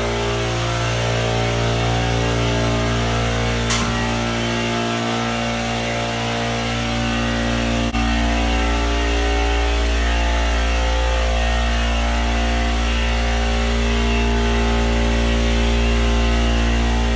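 A steady, low mechanical drone of a running machine, with a single sharp click about four seconds in and a light knock near eight seconds.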